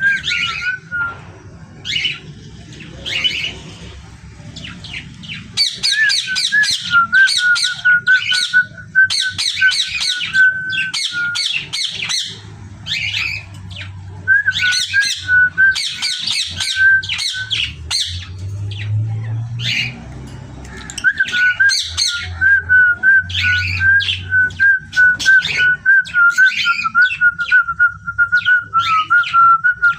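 Pet parrots squawking in bouts of rapid, harsh calls, over a wavering whistled tone that holds for several seconds at a stretch.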